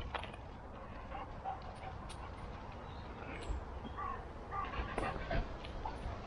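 Black Labrador making several short whining, yipping cries, more of them in the second half.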